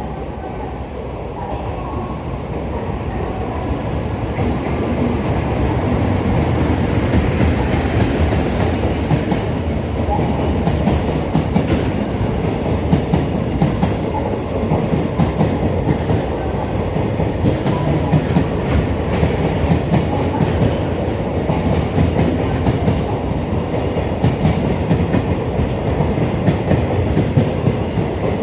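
Freight train running past, its wheels clattering over the rail joints. The sound builds over the first few seconds and then holds steady as the wagons roll by.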